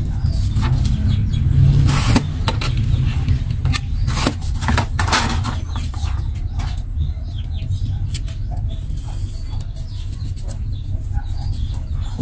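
Paper rustling and short scraping and clicking handling noises as a printed paper sheet is worked with a utility knife, clustered about two seconds in and again around four to five seconds, over a steady low rumble.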